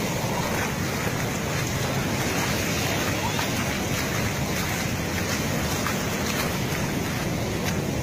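Big surf washing over a seaside road: a steady rush of breaking waves and foaming seawater.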